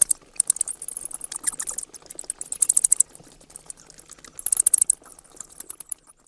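Bats chittering: rapid trains of high-pitched squeaks and clicks, coming in several short bursts and stopping abruptly about six seconds in.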